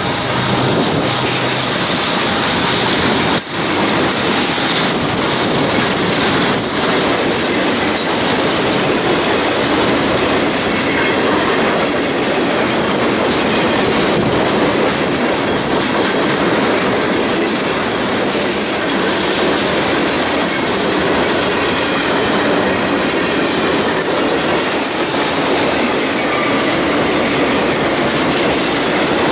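Freight train passing close by. A diesel locomotive's engine is heard in the first few seconds, then a steady, loud rumble and clatter of boxcar wheels rolling over the rails. There is a single sharp knock about three and a half seconds in.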